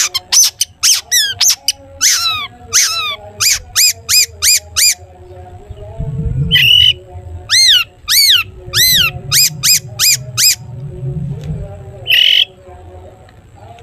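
Long-tailed shrike (cendet) calling: a rapid run of short, sharp, ringing notes, then slower arched 'toet' notes. Two harsh, rasping calls break in, about six and a half seconds in and again near the end.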